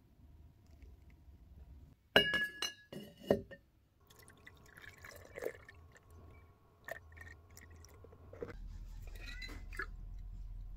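The brass tube of an old blowtorch knocks and clinks against a glass jar as it goes into a jar of cleaning solution to soak. There is a quick cluster of sharp, ringing clinks, then softer knocks and liquid sounds. Near the end come a few more clinks as the tube is lifted back out.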